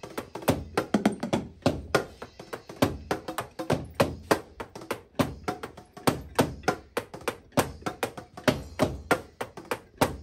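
Drummer playing a fast, steady beat on an electronic drum kit: dense, rhythmic stick strikes on its mesh drum pads and rubber cymbal pads.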